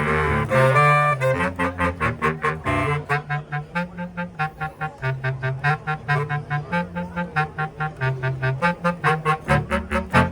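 Bass clarinet quartet playing. Sustained low chords give way, about a second and a half in, to fast, evenly spaced staccato notes, roughly five a second, over a low bass line moving in held steps.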